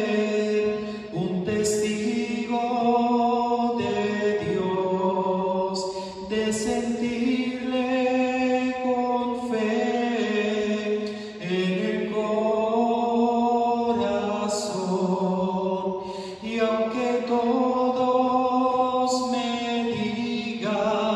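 A hymn being sung: a voice holding long, steady notes phrase after phrase, with short breaths between phrases every few seconds.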